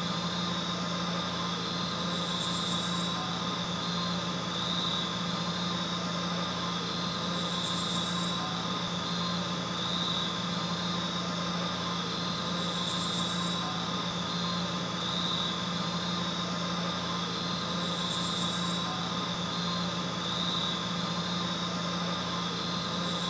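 Steady electrical or mechanical hum with a low drone, several steady higher tones and a hiss, broken by a short high-pitched chirp about every five seconds.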